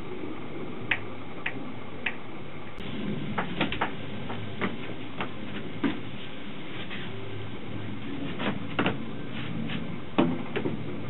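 Scattered clicks and wooden knocks from a solid teak garden bench being handled, turned over and set down on its feet on concrete, with the loudest knock about ten seconds in. Throughout there is a steady background hiss.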